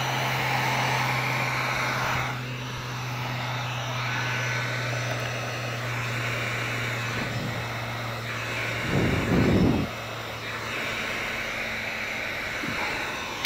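Handheld heat gun running steadily, its fan blowing hot air to shrink window tint film onto the curved glass. A brief low rumble about nine seconds in.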